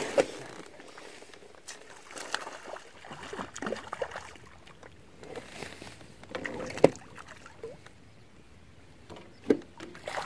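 Scattered light splashes and sloshes of water, broken by short knocks; the sharpest knock comes about seven seconds in and another near the end.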